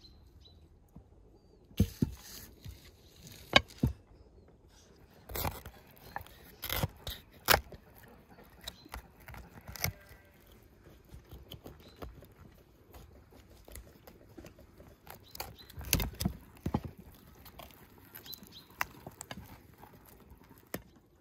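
A knife carving a whole roast duck on a ceramic plate: irregular sharp clicks and knocks as the blade cuts through the crisp skin and bone and taps the plate. Near the end, hands tear the stuffed duck apart.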